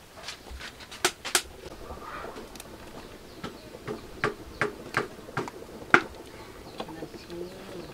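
A series of irregular sharp clicks and taps, about a dozen, with the loudest about six seconds in.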